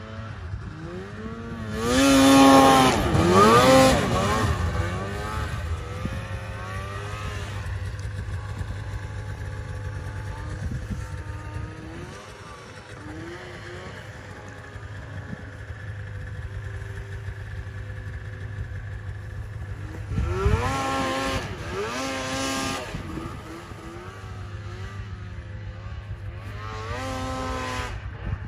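Snowmobile engine revving hard several times as the sled accelerates across the snow, its pitch rising with each burst of throttle, the loudest about two seconds in and again about two-thirds of the way through. A steady low hum runs underneath.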